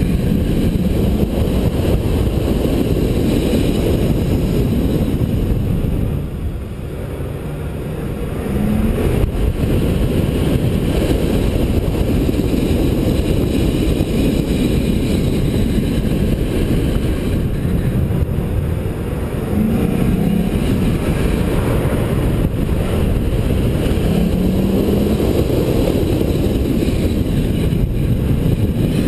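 A car's engine and road and wind noise, heard from inside the car as it is driven hard through a cone course, with a brief easing off about six seconds in before the engine pulls again.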